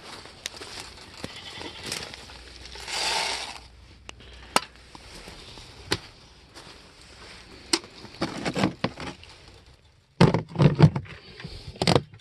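Handling noise from a plastic feed tote and water jugs: scattered clicks and knocks, a short rush of noise about three seconds in, and a quick run of loud plastic knocks near the end as the orange tote lid is handled.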